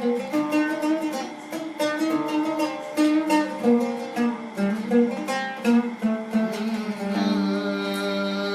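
Instrumental interlude of a song: a plucked string instrument plays a melody of quick notes, then settles into a long held note about seven seconds in.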